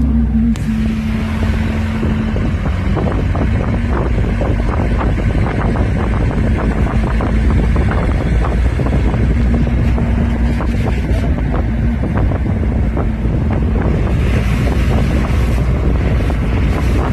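Steady low rumble of a vehicle on the move, with a running drone and heavy wind buffeting on the microphone, crackling throughout.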